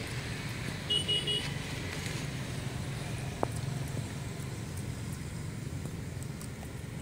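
Steady low rumble of distant road traffic, with three short high beeps about a second in.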